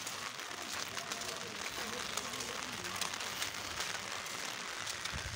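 Steady rain falling, with a constant hiss of many small, sharp drop ticks. Faint voices sound far off in the background.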